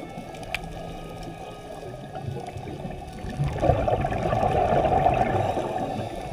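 Muffled underwater rushing and bubbling, as picked up by a camera in a waterproof housing near scuba divers. It swells louder from about halfway through for a couple of seconds, then eases.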